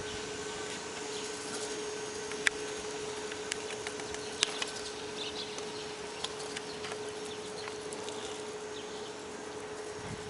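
Sharp clacks of riders' decks and wheels striking the ramps of a skate park, two loud ones about two seconds apart and a few lighter ones, over a steady hum and background noise.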